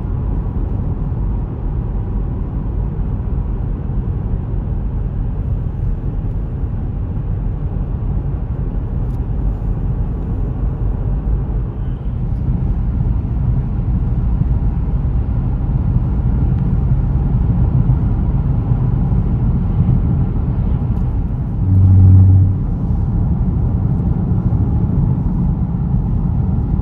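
Steady low road and engine rumble inside a moving car's cabin. Partway through, a brief, louder low hum sounds for under a second.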